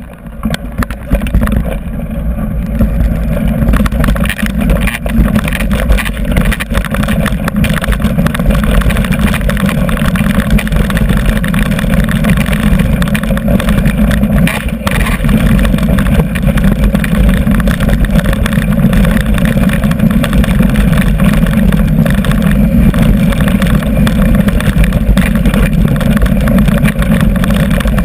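Mountain bike riding noise picked up by a bike-mounted GoPro Hero2: a loud, steady low rumble with constant fast rattling as the tyres roll over a rocky gravel track. It swells in the first couple of seconds as the bike gets moving, then holds.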